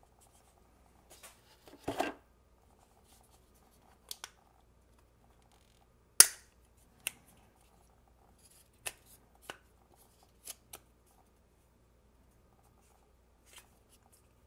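Hard plastic clicks and taps of a SUPCASE Unicorn Beetle Pro rugged phone case being handled, its fold-out kickstand being flipped: a dozen or so scattered sharp clicks, the loudest about six seconds in.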